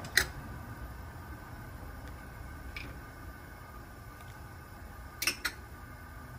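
Large pot of water at a rolling boil, a steady low rumble, with a few sharp clicks as onion and garlic are dropped in from a small bowl: a loud click just after the start, a faint one about three seconds in, and two quick clicks about five seconds in.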